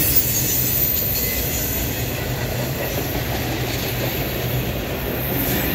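Railcars of a work train, flatcars loaded with track-maintenance machines, rolling steadily past on the rails: a continuous noise of steel wheels on track.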